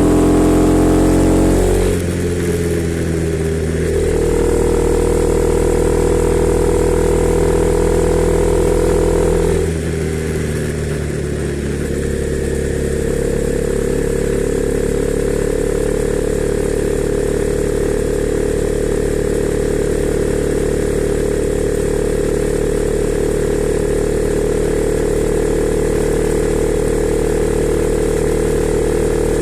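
Honda CB300R's single-cylinder engine running at a steady pitch. The note dips briefly as the throttle eases about two seconds in and again near ten seconds, then holds steady.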